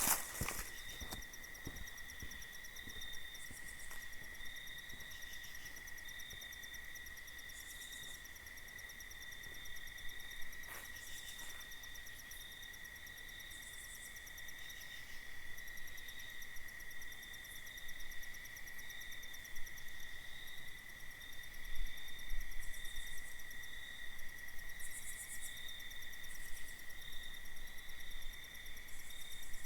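Night insect chorus of crickets trilling steadily, with short higher buzzes coming and going every few seconds. A few faint clicks sound near the start.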